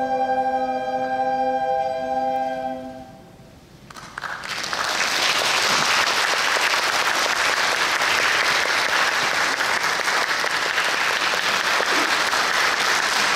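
A small ensemble's final held chord sounds steadily and ends about three seconds in. After a brief hush, an audience breaks into steady applause that continues to the end.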